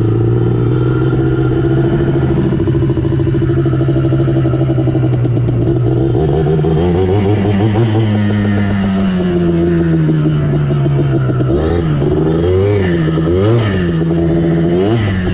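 Yamaha Blaster's single-cylinder two-stroke engine running steadily at idle, then revved up about six seconds in and easing back, followed by several quick blips of the throttle near the end.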